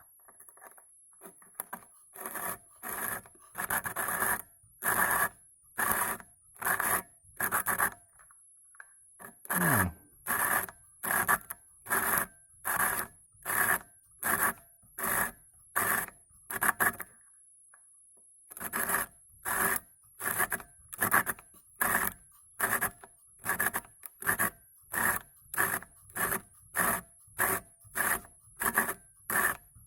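Rhythmic rasping strokes of an abrasive hand tool grinding into the glass envelope of an LED filament bulb, about one stroke a second and a little quicker later, in three runs with two short pauses. The glass is being worn through to make a hole.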